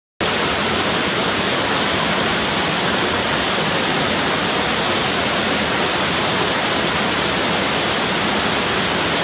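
Loud, steady rushing noise with a strong hiss, starting abruptly out of dead silence just after the start and holding one even level.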